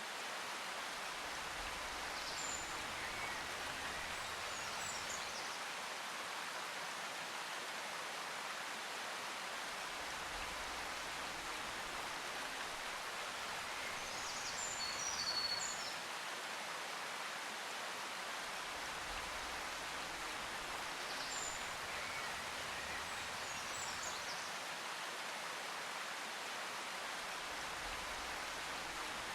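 Steady rushing water noise like a stream or rain, with faint high bird chirps every few seconds: a nature-sounds ambience.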